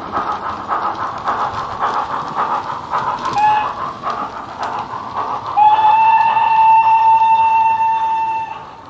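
Wheeltappers steam sound file on the DCC sound decoder of a Bachmann 4MT model steam locomotive, playing through a small sugarcube speaker. There is steady rapid chuffing as the loco runs. A short whistle toot comes about three seconds in, then a long whistle of about three seconds, the loudest sound.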